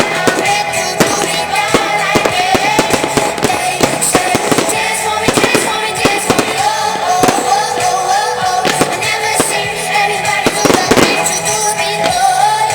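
Fireworks going off in a rapid string of bangs and crackles, under loud music with a wavering melody line.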